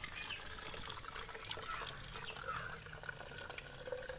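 Peel-steeped rainwater being poured from a jar through a steel mesh strainer into a plastic container, trickling steadily through the mesh.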